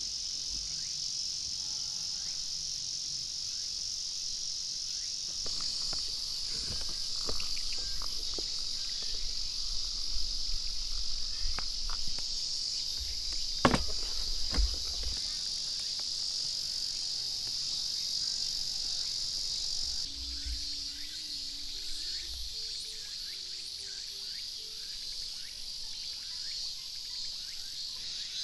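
Steady high-pitched drone of an insect chorus in summer woodland. A few light knocks come through, the loudest about halfway.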